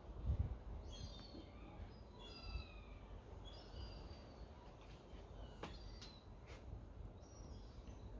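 Gulls calling, a series of short, slightly falling cries through the first half, over a steady low rumble. Two faint clicks come a little past the middle.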